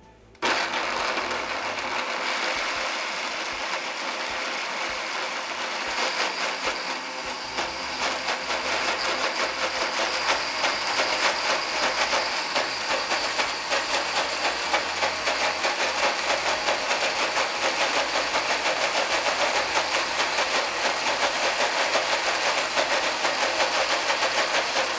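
Countertop blender switched on about half a second in and running steadily, puréeing cubed tofu, chopped leek, spinach, water and oil into a smooth green cream.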